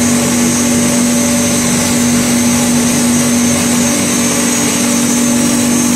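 Electric-motor-driven hammer mill running at full speed: a loud, steady whirring with a constant hum and a high whine.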